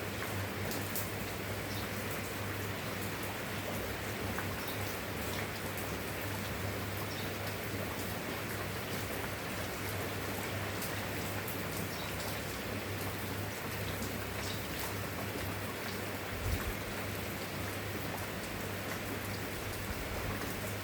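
Steady rain falling, with individual drops ticking over an even hiss, over a steady low hum. There is a brief low thump about sixteen seconds in.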